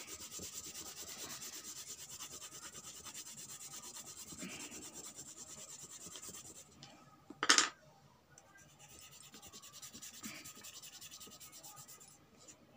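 6B graphite pencil shading hard on paper: quick, even back-and-forth scratching strokes, several a second. A single brief loud knock comes about seven and a half seconds in, and after it the strokes go on more faintly.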